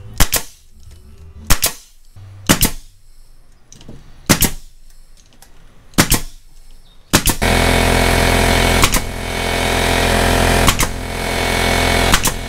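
Pneumatic stapler fastening carpet to wooden trim panels: nine sharp shots, irregular and one to two seconds apart. About seven seconds in, a loud steady mechanical hum with hiss starts and runs under the last three shots.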